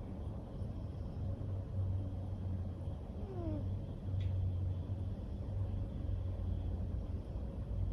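Ragamuffin cat snoring: low, rumbling snores that swell and fade with its breathing, roughly every couple of seconds.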